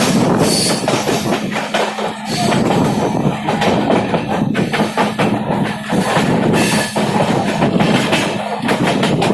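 Passenger train running at speed, wheels clattering and knocking rapidly over rail joints and points with coach rattle, under a steady low hum that fades out near the end.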